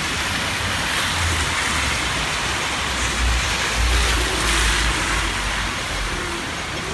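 Cars driving past on a wet road, their tyres hissing through standing water, over steady rain. The loudest pass comes about four seconds in.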